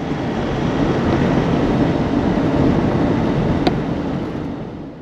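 Steady road and engine noise of a car on the move, fading out near the end.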